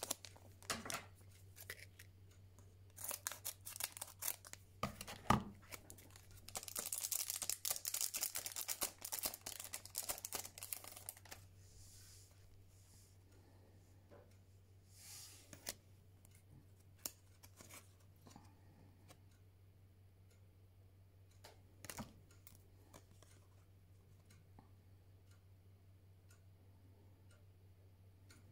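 Foil trading-card booster pack being torn open and crinkled, with a dense stretch of crinkling about a quarter of the way in. After that come quieter occasional clicks and rustles as the thin cards are handled and flipped.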